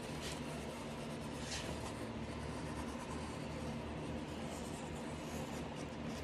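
A knife blade drawn through a leather hide along a table edge to trim a straight edge, giving a few faint scratching, slicing strokes over a steady low background hum.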